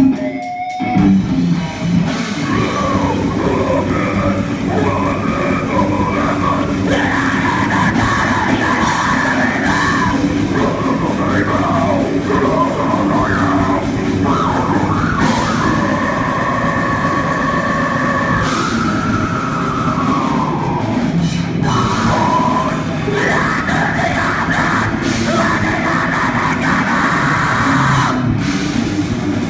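Live heavy metal band playing: electric guitar and drum kit, with a vocalist yelling into a microphone. Near the middle a long note is held, then bends down.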